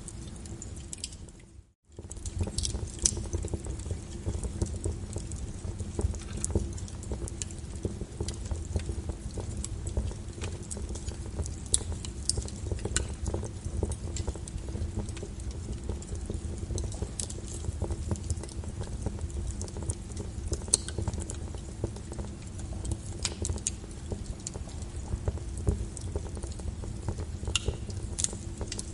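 Wood fire burning: a steady low rumble with frequent, irregular sharp pops and snaps of crackling logs. The sound cuts out for a moment just under two seconds in.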